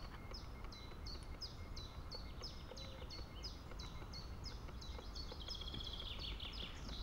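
A small songbird repeating a short, high, down-slurred note about three times a second, over faint outdoor background noise.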